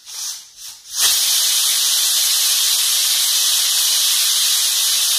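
Pressure cooker venting steam: a loud, steady hiss that starts about a second in.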